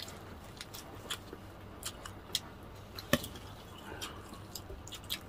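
Close-up eating sounds of crispy fried chicken: scattered sharp clicks and crackles of chewing and tearing, with one louder snap about three seconds in.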